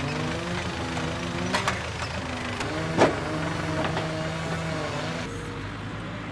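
Tractor engine running under load as its hydraulic log-loader crane works, the engine note stepping up and down. There is a light knock about a second and a half in and a sharp, loud clunk about three seconds in as the grapple handles the log at the trailer. The engine sound cuts off about five seconds in.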